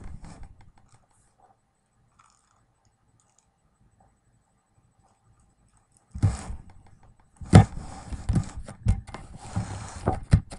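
A plastic treat-dispensing ball with dry cat food inside rattling and clattering as a cat bats and rolls it across carpet. It comes in a run of rattling, clicking bursts after several quiet seconds.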